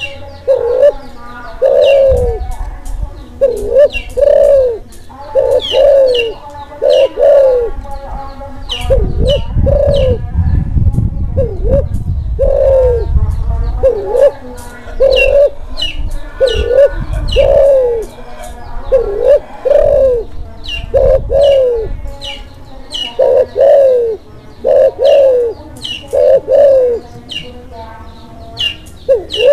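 Klantan-type spotted dove in breeding condition cooing over and over, each phrase a few short low notes that rise and fall, following one another in a steady series. Short high chirps are mixed in throughout.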